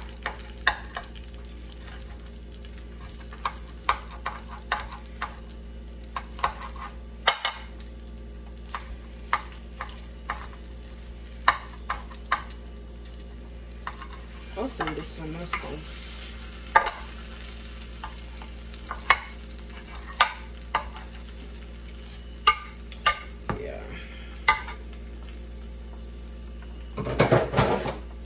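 Kitchen cooking sounds: sharp clinks of a utensil against pots and pans at irregular intervals, over a steady low hum.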